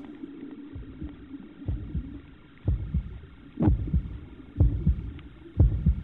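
Heartbeat sound effect on the soundtrack: low double thumps, lub-dub, about one a second, starting faintly and getting louder.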